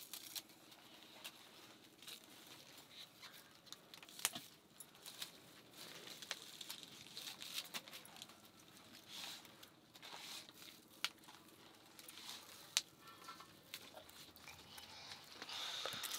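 Scattered light clicks, taps and rustles over a faint steady hum.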